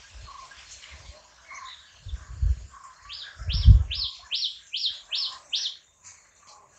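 Grey-breasted (Franklin's) prinia calling: a run of seven quick, high notes, each sliding downward, about three a second, starting about three seconds in. Two low rumbles on the microphone come about two and three and a half seconds in; the second is the loudest moment.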